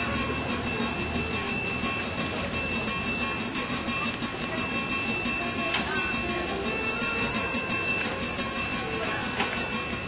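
A bell ringing steadily with a high metallic tone and a rapid, even beat.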